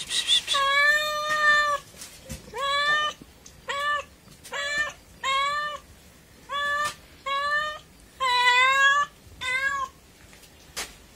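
Domestic cat meowing over and over, about nine meows in a row, the first and one a little before the end drawn out longer than the rest.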